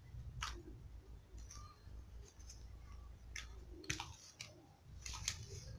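Scattered light clicks and crinkles of thin plastic seedling trays and pots being handled while seedlings are lifted out with their soil, over a faint low rumble.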